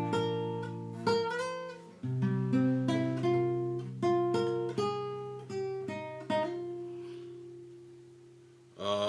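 Acoustic guitar picking single notes and chords, each one ringing and decaying. A chord about six seconds in is left to fade away slowly, and a louder, fuller strum comes in just before the end.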